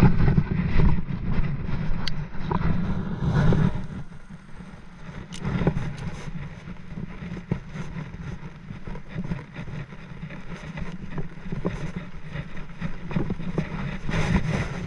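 Wind rumbling on the camera's microphone, heavy for the first four seconds and then easing, with scattered small clicks and rustles from handling.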